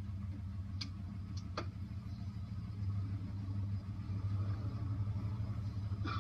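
Car engine running with a steady low hum, and a few short clicks between one and two seconds in.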